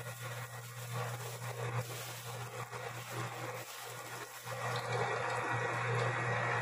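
Electric meat grinder running with a steady motor hum and a noisy rush as raw chicken heads are ground. The hum sags briefly a little past the middle.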